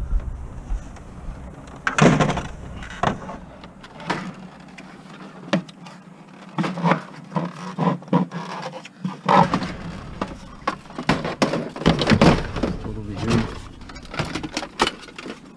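Irregular series of knocks, clunks and clatters, like items of scrap and e-waste being handled and set down, beginning about two seconds in and coming thicker in the second half.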